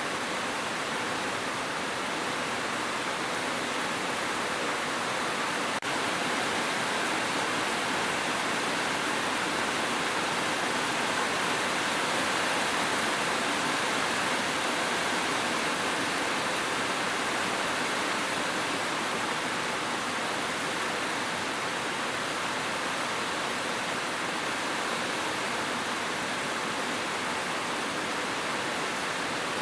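Steady heavy rain, an even unbroken hiss with no distinct drops standing out.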